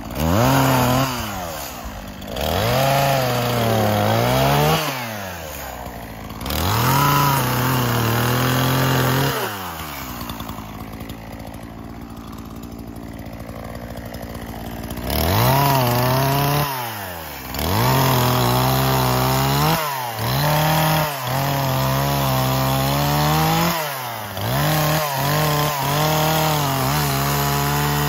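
Echo CS-4510 two-stroke chainsaw bucking a log: it revs to full throttle and cuts in several long bursts, drops to a steady idle for about five seconds in the middle, then runs a string of shorter throttle bursts, falling back toward idle between them.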